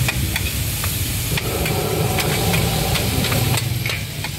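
Char koay kak (fried rice-flour cake) sizzling in a large flat wok, with a metal spatula clicking and scraping against the pan at irregular moments, over a steady low mechanical hum.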